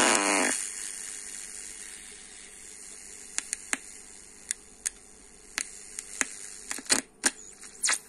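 Loudspeaker of a 1920s regenerative valve radio warming up: a loud noise dies away over the first second or two to a faint steady hiss. About a dozen sharp crackles and pops follow from about three seconds in, coming faster near the end as a front-panel control is turned.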